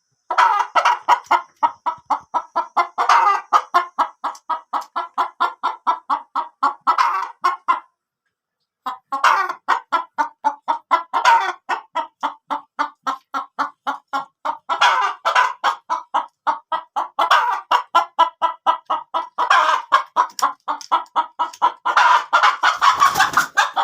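Chickens clucking in a fast, even run of short calls, about six a second, with a brief pause about eight seconds in.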